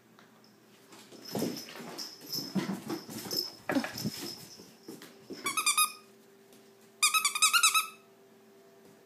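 A hyper puppy playing: scuffling and rough-play noises, then two loud bursts of rapid, high-pitched yips, about five and seven seconds in.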